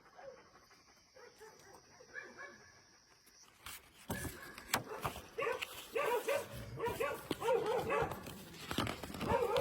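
Dogs barking and whining in short repeated calls, starting about four seconds in after a faint, nearly quiet start.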